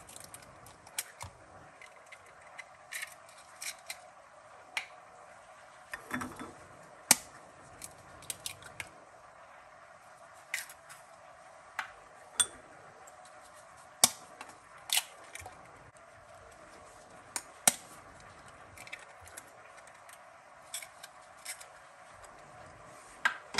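Eggs cracked one after another with a knife: sharp taps and cracks of eggshell, a few seconds apart, over a faint steady hum.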